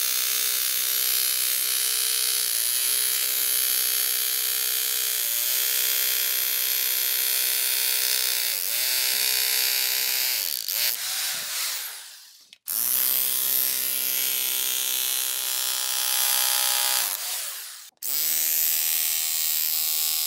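Corded electric jackhammer with a homemade flat shovel blade running with the blade driven into turf and soil. It winds down and stops twice, about twelve and about eighteen seconds in, and each time starts again at once.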